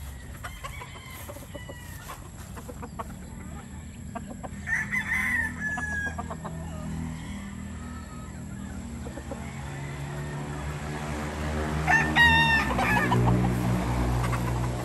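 Young Mclean gamefowl stags crowing: one crow about five seconds in and a louder one about twelve seconds in. A low steady hum builds underneath in the second half.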